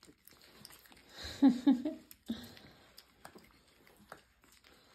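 Four-week-old Morkie puppies eating soft, soaked food from a plate: faint scattered wet chewing and lapping clicks, with one short whimper about a second and a half in.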